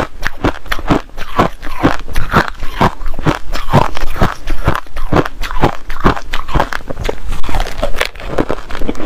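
Crushed ice being chewed and crunched between the teeth: a steady run of sharp, crisp crunches, about three or four a second.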